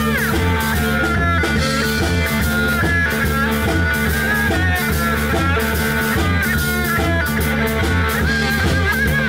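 Live rock band playing an instrumental passage: lap steel guitar plays sliding, bending notes over electric bass and drum kit.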